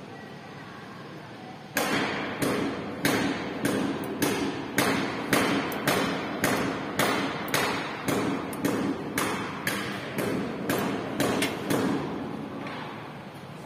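Rhythmic knocking, about two sharp strikes a second, starting about two seconds in and dying away about a second before the end, over a steady low hum.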